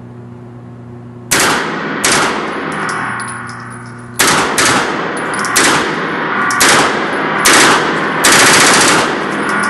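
A string of gunshots, about eight in all, at uneven spacing: two about a second in, a short pause, then a run of shots, the last drawn out near the end. A steady low hum runs underneath.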